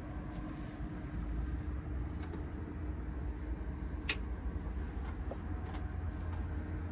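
Cab interior of a Nikola hydrogen fuel-cell electric semi under way: a steady low rumble with a constant hum over it, no engine sound, and one sharp click about four seconds in.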